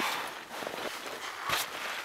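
Clothing and gear rustling as a person pulls on layers, with a sharp knock about one and a half seconds in.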